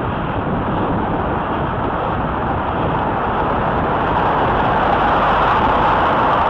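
Steady rush of road and wind noise with a car running close by, growing a little louder from about halfway in.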